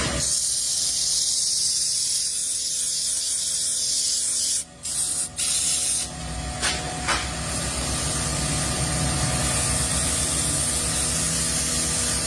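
A steady spraying hiss, cut off twice briefly a little before the middle; from about halfway a low rumble runs under it.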